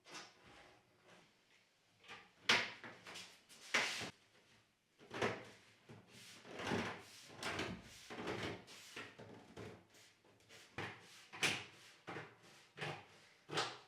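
Irregular knocks and clacks of wooden wardrobe doors and panels being handled, some loud, others faint.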